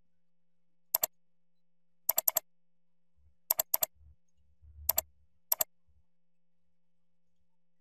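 Computer mouse buttons clicking in quick double and triple clicks, five groups spread over about five seconds, with faint low thuds between them.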